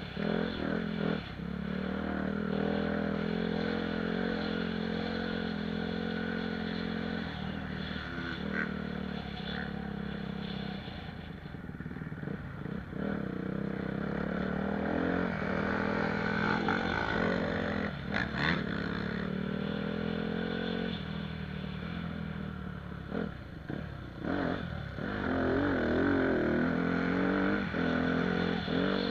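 Honda CRF 250 motocross bike's single-cylinder four-stroke engine under hard riding, revs rising and falling as the throttle is opened and closed, easing off twice. Sharp knocks and clatter come as the bike hits ruts and bumps.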